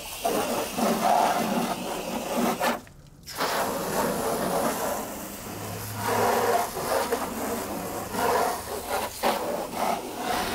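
Continuous rushing, scraping noise of a truck's mud-caked undercarriage being washed, broken by a brief drop-out about three seconds in. A low steady hum joins about halfway through.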